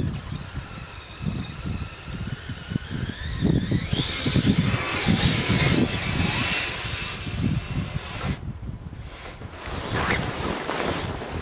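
Twin brushless electric motors of an RC snowcat whining as it drives, the pitch climbing about four seconds in and wavering with the throttle, cutting out for about a second near the end before picking up again. Irregular low thumping runs underneath.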